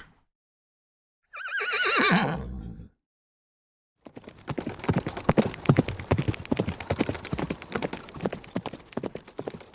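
A horse whinnies once about a second and a half in, a wavering call that falls in pitch. From about four seconds in, horse hooves clop in a quick, steady run of hoofbeats.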